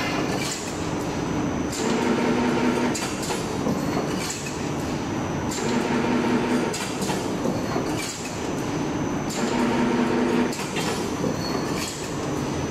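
Automatic wire clothes hanger forming and welding machine running through its cycle: a hum of a little over a second returns about every four seconds, with sharp clicks and clacks between.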